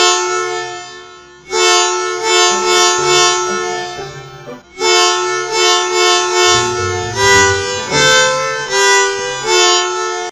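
Bus musical air horn sounding three long blasts of a reedy two-note chord. The last blast steps through several notes like a tune, starting about seven seconds in.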